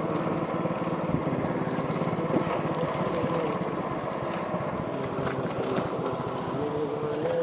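Small motorbike engine running while riding, its pitch wavering with the throttle and rising near the end.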